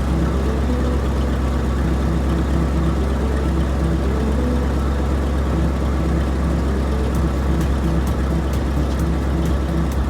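Cartoon truck engine sound effect running steadily as a low rumble, with a simple background tune of short repeated notes.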